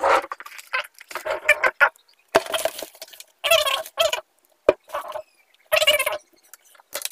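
A boy's voice making short wordless vocal sounds: several separate pitched bursts with short pauses between them.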